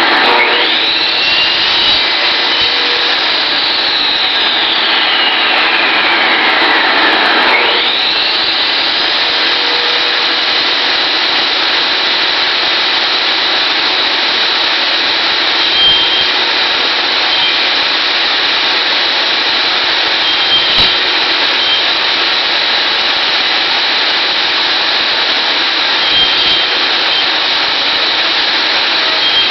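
Table saw running, its blade cutting the notches in a wooden beehive top bar. The whine sags in pitch for several seconds as the blade is loaded in the cut, then jumps back up about eight seconds in, after which the saw runs steadily with a few light knocks.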